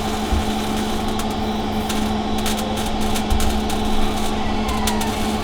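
MIG wire-feed welder arc crackling steadily with frequent sharp pops of spatter as a bead is dragged along sheet-metal body panel, over a steady electrical hum.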